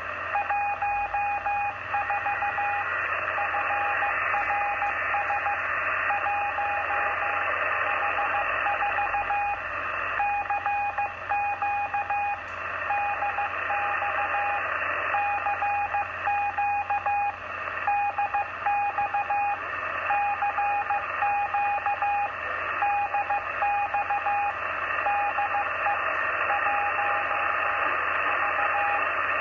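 Morse code (CW) received on the 27 MHz citizens band through an Icom IC-706MKIIG transceiver's speaker: a single steady beep keyed on and off in dots and dashes, over constant band hiss. It is a CQ DX call from a French CB station.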